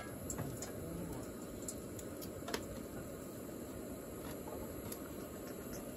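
Portable gas cassette stove burning under a lidded enameled cast-iron pot: a steady low roar of the flame, with a few light ticks and one sharper click about two and a half seconds in.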